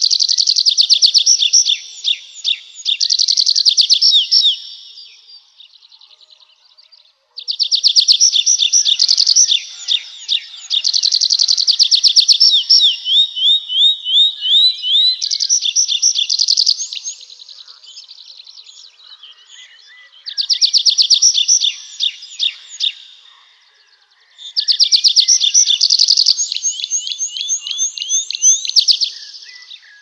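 A songbird singing long phrases of fast, rapidly repeated high notes. There are four bursts of song, with short pauses between them.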